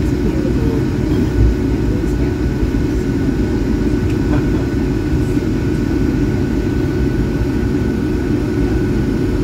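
Steady cabin noise of a Boeing 757-200 taxiing after landing, heard from inside the cabin: a constant low rumble with a faint steady hum.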